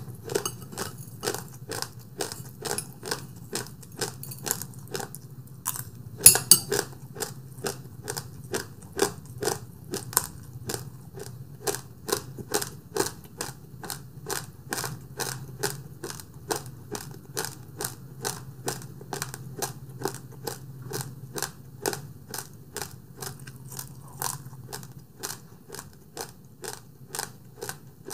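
Close-up chewing of rice with a spoonful of condensed milk: wet mouth clicks and smacks at about two to three a second, with one louder, sharper click about six seconds in, over a low steady hum.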